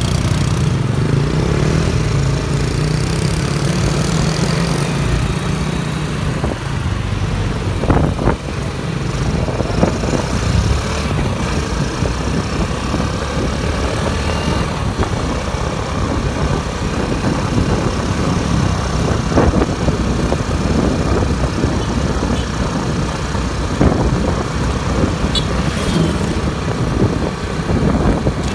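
A motorcycle engine running while riding along a street, its hum mixed with road and wind noise, with a few brief thumps along the way. A steady engine hum from scooters close ahead is strongest for the first few seconds.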